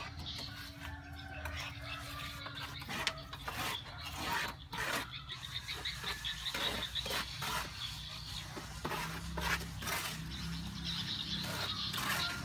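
Steel plastering trowels scraping and tapping on wet cement mortar and the mortar board in short, irregular strokes, as mortar is scooped up and spread and smoothed over a wall.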